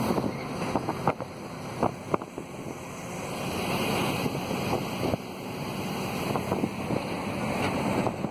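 Steady rush of engine, road and wind noise inside the cab of a moving Bharat Benz 2523 diesel truck. A few sharp knocks and rattles come in the first couple of seconds, and the noise grows louder from about three seconds in.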